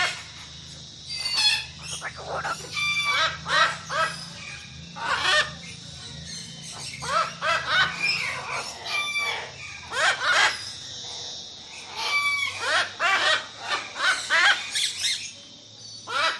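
Tropical birds giving loud, harsh squawking calls in quick clusters, one after another. A steady high-pitched hiss runs underneath.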